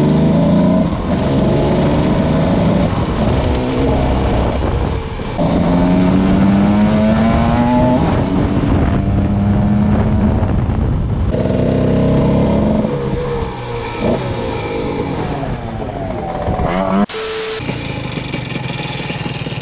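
A Cagiva Mito 125's two-stroke single-cylinder engine accelerating through the gears on the move. The note climbs in pitch, then breaks and drops at each gear change. After about two thirds of the way in it eases off and slows down, and a short burst of noise comes near the end.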